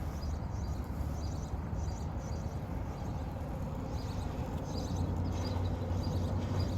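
Steady low outdoor background rumble with a few faint light ticks.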